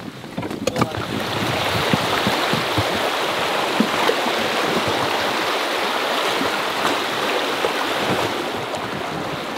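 River water rushing through shallow riffles around an inflatable raft, a steady loud rush that sets in about a second in, after a few knocks from gear on the boat.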